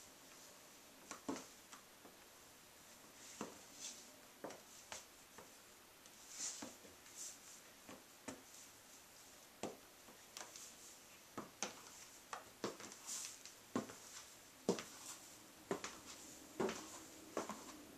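Stiletto high heels tapping and clicking on a ceramic tile floor at irregular intervals as the wearer shifts their feet, then faster steps near the end as they walk away.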